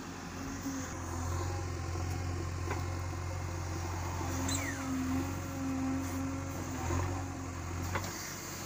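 JCB 3DX Eco backhoe loader's diesel engine running steadily under load while the backhoe arm digs and swings soil, with a higher tone coming and going over the engine.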